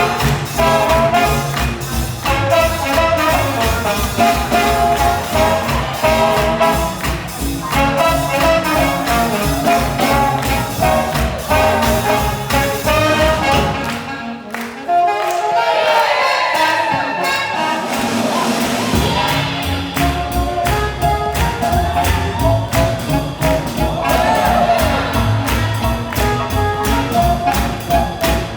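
A live swing jazz band with brass plays an up-tempo number over a steady beat. About halfway through, the bass and drums drop out for a few seconds while the horns carry on, then the full band comes back in.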